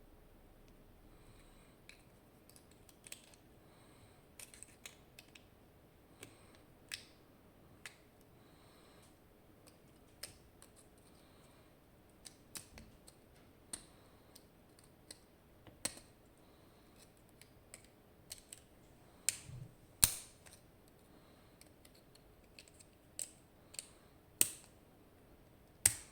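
Small metal clicks and taps from a picked GeGe AP 2000 lock cylinder and hand tools being handled. They come irregularly, with a few sharper, louder clicks in the last third.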